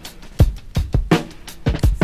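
Drum-kit loops playing back, with deep kick and bright snare-like hits several times a second. They are time-stretched by Max/MSP elasticx~ objects to a shared master tempo without changing pitch.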